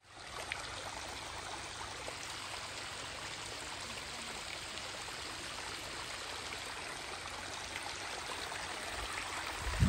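Small waterfall splashing down a rock face into a shallow, stony stream: a steady rush and trickle of water. A brief low thud comes at the very end.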